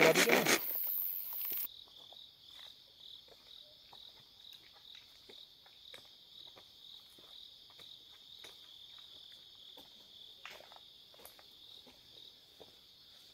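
Faint, steady high-pitched chirring of insects in the forest, with small scattered clicks and rustles and a soft thump about ten and a half seconds in. A louder sound cuts off within the first two seconds.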